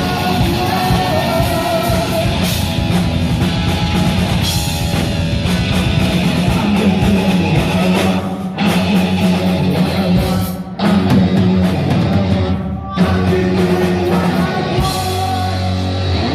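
Heavy metal band playing live: distorted electric guitar, bass and drum kit. The band cuts out for short stops three times, about halfway through and shortly after.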